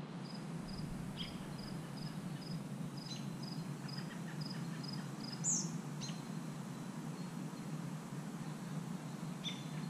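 Outdoor dusk ambience of birds and insects: a short high chirp repeating about twice a second for the first half, a few sharp falling call notes, and one brief downward-sweeping bird call about halfway, which is the loudest sound, all over a steady low hum.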